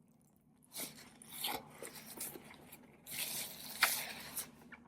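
A person chewing a mouthful of salami pizza with thick crust: soft, irregular bouts of chewing, busiest near the end, with a sharp click partway through.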